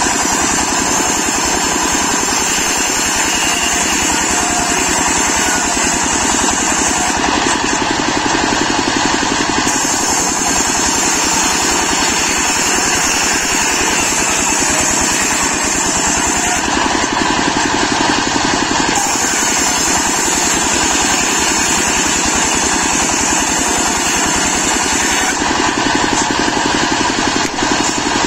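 Stationary single-cylinder diesel engine running steadily under load, driving a large circular saw blade that rips teak slabs into planks. The high edge of the sound drops away three times for two to three seconds.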